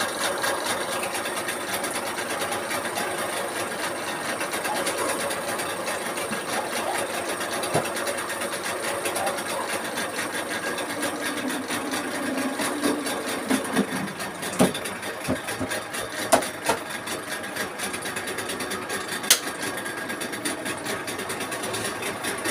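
Yamaha 15 hp outboard motor running steadily and smoothly, with no stumbling or hesitation, its carburettor modified to save fuel. A few sharp knocks in the middle.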